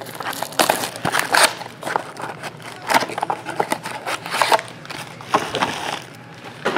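Clear plastic shrink wrap crinkling and crackling in irregular bursts as it is pulled off a trading card box.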